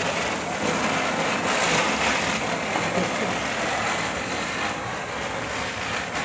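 Ground firework spraying sparks, giving a steady hiss.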